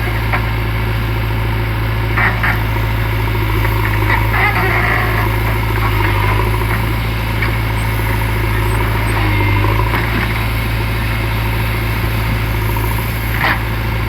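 JCB 3DX backhoe loader's diesel engine running steadily with a low, even drone, and a few short sharp sounds over it.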